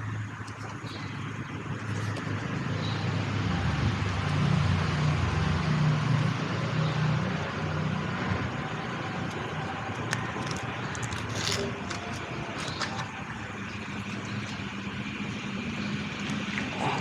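Road traffic rumble that swells and fades as a vehicle passes in the first half. A few sharp clicks and taps follow in the second half.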